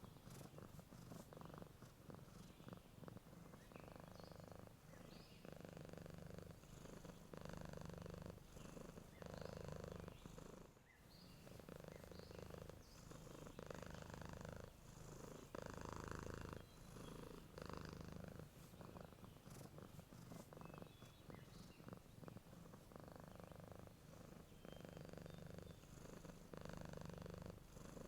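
Domestic cat purring steadily, swelling and fading with each breath in a slow, even rhythm about every second and a half.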